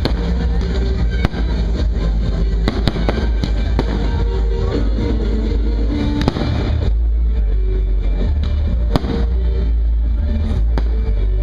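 Aerial firework shells bursting and crackling over loud music with a heavy, steady bass. The bangs come thick in the first half and thin out in the second, with one sharp bang about nine seconds in.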